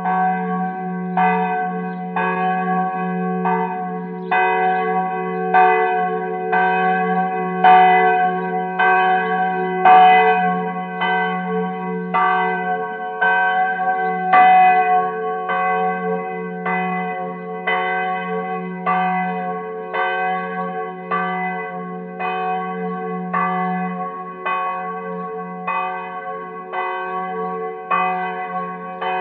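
Church bell struck over and over, about once a second, each stroke ringing out with bright overtones over a low hum that carries on between strokes.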